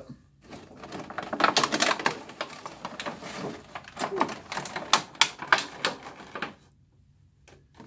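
Clear plastic packaging tray crinkling and clicking against the cardboard as a large vinyl Funko Pop figure is slid out of its window box, a rapid run of small clicks and rustles that stops about a second before the end.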